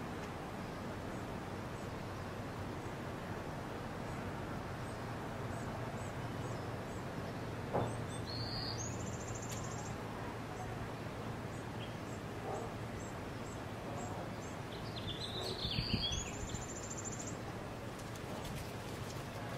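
Steady outdoor background noise with a low hum and faint, regular high ticking. Two short, high-pitched bird calls with a buzzy trill come about eight and sixteen seconds in, and a brief thump comes just before the first.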